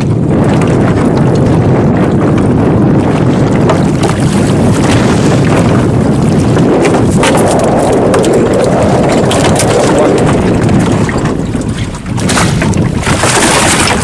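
Wind buffeting the microphone over open water, a steady rushing noise. Near the end, water splashes as a hooked fish thrashes in a landing net at the side of the boat.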